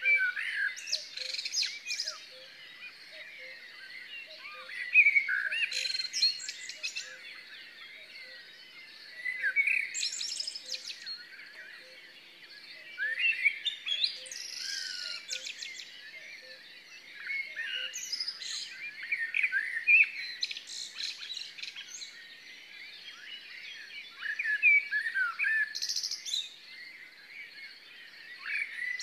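A songbird singing, repeating a short song phrase of about two seconds roughly every four seconds.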